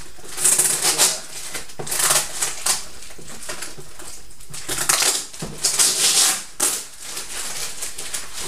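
Brown packing paper crinkling and cardboard scraping as a boxed item is pulled out of a shipping carton, in three bursts of rustling.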